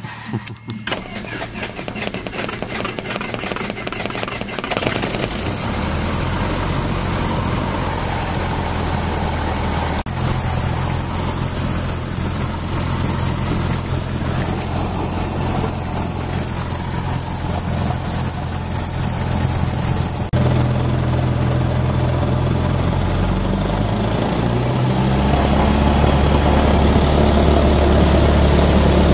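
Single-engine light airplane's propeller engine being started: it turns over in rapid even pulses for the first few seconds, catches about five seconds in and settles into a steady run. Its pitch steps at about ten and twenty seconds, and it grows louder near the end as power comes up.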